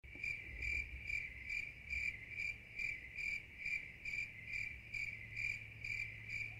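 Cricket chirping in a steady, even rhythm of about two chirps a second, over a faint low hum.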